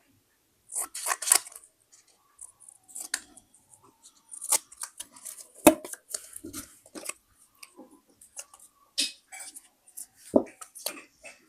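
Scissors cutting paper in short, irregular snips, mixed with paper rustling and handling. Two sharper, louder clicks come about six and about ten seconds in.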